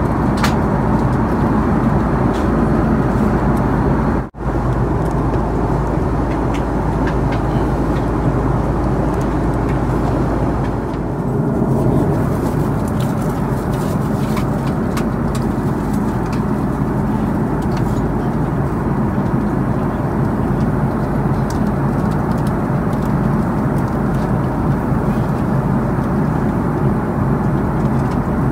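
Steady roar of an Airbus A330-300 airliner cabin in cruise flight: engine and airflow noise, heaviest in the low range. It cuts out for an instant about four seconds in.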